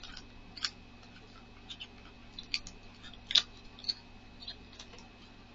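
Light, scattered clicks and rustles of a small cardboard box being opened and its contents handled with long false nails, the sharpest click about three and a half seconds in, over a faint steady hum.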